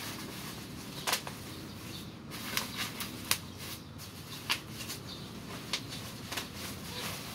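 Handling of a cardboard box and its thick packaging wrap: rustling, with scattered sharp crackles and taps, several of them loud.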